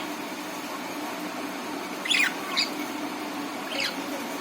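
Budgerigar chirping: two quick calls close together a little past two seconds in and another near the end, each sweeping quickly down in pitch, over a steady low hum.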